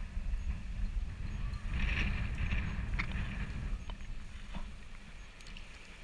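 Shallow seawater sloshing and lapping against a waterproof camera held at the surface, a heavy low rumble with a swell of splashing hiss about two seconds in and a few small clicks and knocks.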